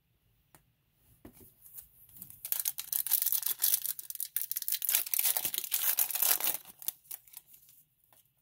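Foil wrapper of a Topps Chrome trading card pack being torn open and crinkled: a dense crackling rustle from about two and a half seconds in until about seven seconds, with a few light clicks before and after.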